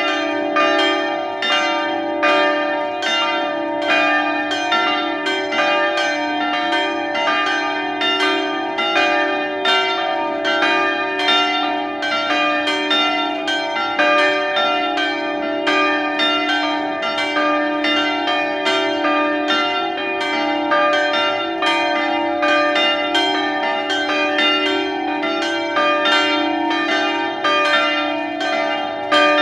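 Grensáskirkja's church bells ringing together in a continuous peal: several bells striking in quick overlapping succession, about three strikes a second, over the steady hum of their lingering tones.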